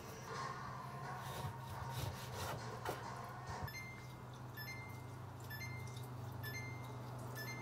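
A lemon being handled on a wooden cutting board and then squeezed by hand over a bowl: light knocks and handling noise over a steady low hum. From about halfway in, a short high chirp repeats about once a second.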